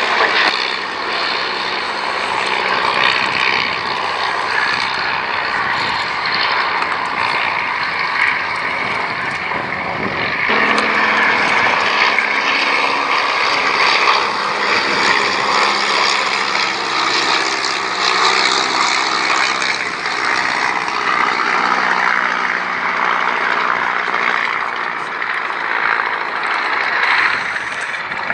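Percival Provost's Alvis Leonides radial engine and propeller running through an aerobatic display. The engine note changes about ten seconds in as the aircraft manoeuvres.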